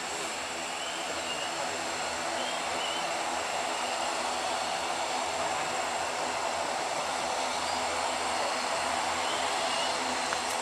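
Jet airliner engines running with a steady rushing noise and a high, steady whine, growing slowly louder.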